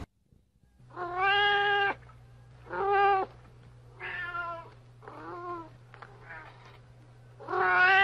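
Cat meowing repeatedly: a run of about six drawn-out meows, each up to about a second long. The first two and the last are loudest, and the ones in the middle are faint.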